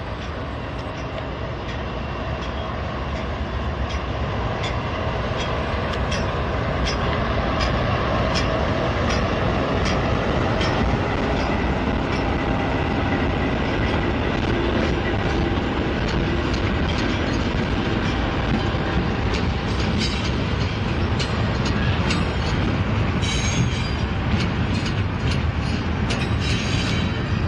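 Pair of BNSF diesel locomotives passing close at speed with a freight train, the engine rumble growing louder over the first several seconds. The double-stack intermodal cars follow, their wheels clicking over the rail joints, the clicks coming closer together near the end.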